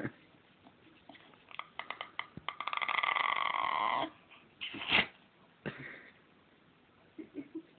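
Small pet dog's 'talking' vocalisation, the noise it makes when it wants more stroking: a run of quick grunting pulses that builds into a long drawn-out whine, followed by two short whines and some faint grunts near the end.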